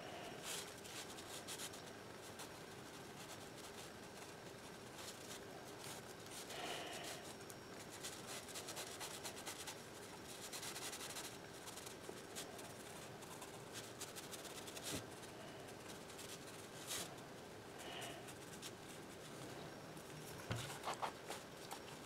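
Faint rubbing and scratching of a brush pen's tip on sketchbook paper, coming and going in strokes, with a few light clicks over a steady low hiss.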